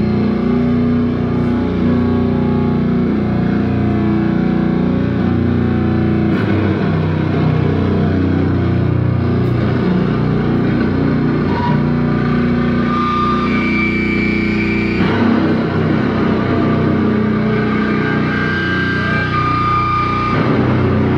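Live rock music: distorted electric guitar playing long, held chords that change every few seconds, with higher sustained notes ringing over them in the second half.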